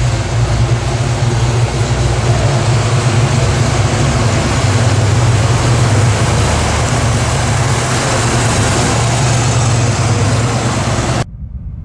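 Carbureted 350 cubic-inch small-block V8 in a 1966 Chevy II Nova running steadily as the car drives slowly past. The sound cuts off suddenly near the end.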